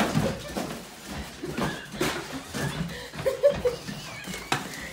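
Cardboard box scraping and rustling on a wooden floor as a Boston terrier bites and tugs at it, with a few sharp knocks and a person chuckling briefly.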